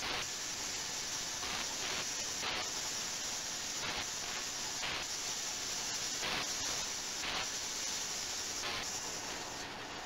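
Ultrasonic cleaning tank running, its liquid giving off a steady cavitation hiss with brief swells at irregular moments.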